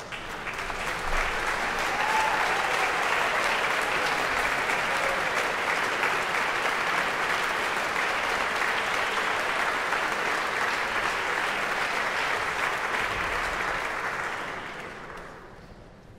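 Concert audience applauding, welcoming the conductor onto the podium. The clapping builds over the first two seconds, holds steady, then dies away near the end.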